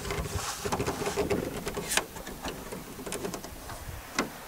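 Footsteps crunching through dry fallen leaves, irregular and denser in the first two seconds, then one sharp knock about four seconds in as the plywood canoe is set down.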